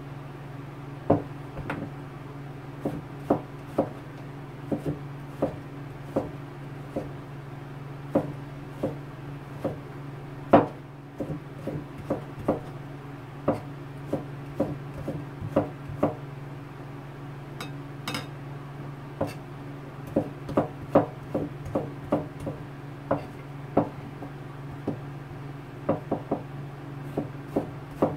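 A kitchen knife cutting slices of bottle gourd into strips on a plastic cutting board: irregular sharp chops against the board, about one or two a second, some in quick clusters. A steady low hum runs underneath.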